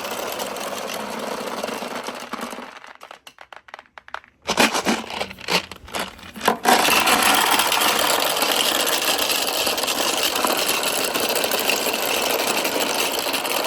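Many marbles clattering and rolling down a marble run. The dense rattle dies away about three seconds in, leaving a few single clicks and knocks. A dense, steady clatter starts again about seven seconds in.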